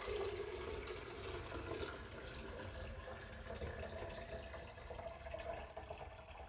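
Fresh water running into the De'Longhi Dedica's water tank to refill it for the rinse cycle after descaling. The steady splashing rises slowly in pitch as the tank fills.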